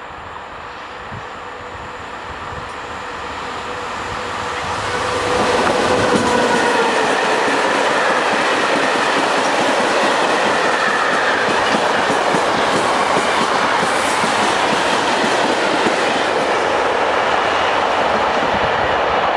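Electric locomotive hauling a freight train of tank wagons and car-carrier wagons, approaching and growing louder over the first five seconds. It then passes close by with a steady, loud clatter of wagon wheels on the rails.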